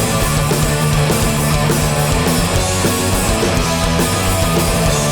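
Live hardcore punk band playing loud, with electric guitars, bass and drums, in an instrumental stretch of the song with no vocals.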